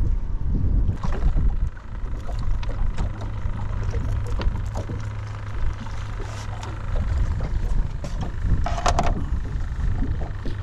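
Steady low rumble of wind and water around a small boat, with scattered light clicks of fishing gear being handled and a brief plastic rustle about nine seconds in.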